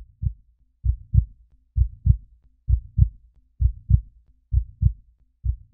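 Heartbeat sound effect: pairs of short low thuds, the second close behind the first, repeating evenly a little faster than once a second.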